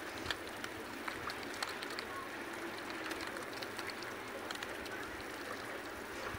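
Many fish feeding at the water surface, making irregular small plops and smacking sounds as their mouths break the water, over a steady background hiss.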